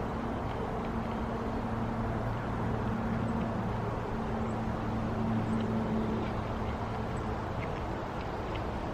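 A steady low motor hum, with faint clicking mouth sounds of chewing.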